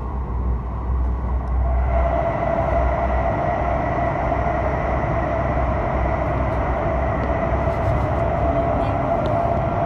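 Cabin noise of a CR400AF-A Fuxing high-speed train running at speed. It grows louder about two seconds in as the train enters a tunnel, and a steady whining tone then holds over the even running noise.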